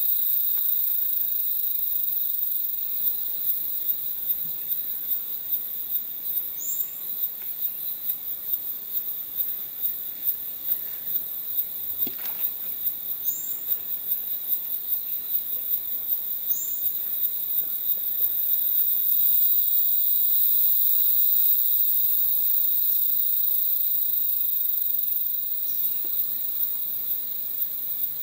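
Borneo rainforest insect chorus: a steady, high-pitched chirring with a second steady band lower down. For much of the first two-thirds it pulses at about two beats a second. A few short, high chirps stand out over it.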